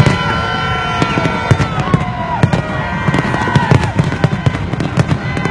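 Fireworks display going off in a rapid barrage of bangs and crackles, with whistling tones sliding in pitch over them.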